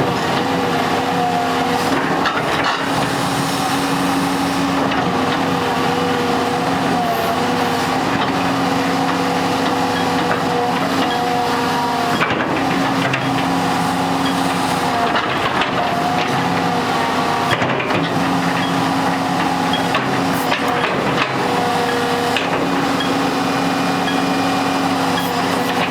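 Hitachi EX200-2 hydraulic excavator running steadily, its diesel engine and machinery giving a continuous drone with several steady tones that waver and shift in pitch every few seconds.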